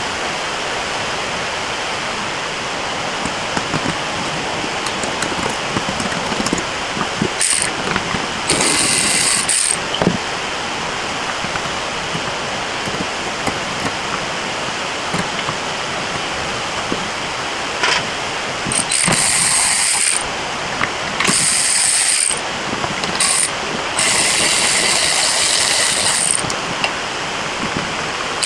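A ratchet wrench working fasteners in five short bursts of a second or two, over a steady hiss.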